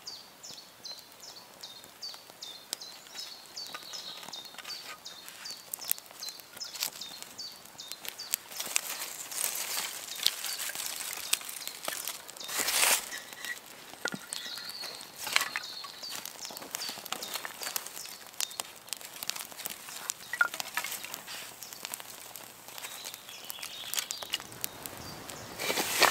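Small campfire of split wood and kindling crackling, with frequent sharp pops. A bird calls over and over with short high notes through the first several seconds, and there is a louder burst of noise about halfway.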